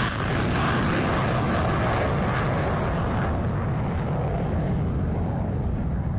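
An F-35A Lightning II's single F135 turbofan engine at takeoff thrust as the jet climbs away, heard as continuous loud jet noise. The high hiss fades over the last few seconds, leaving a deep rumble.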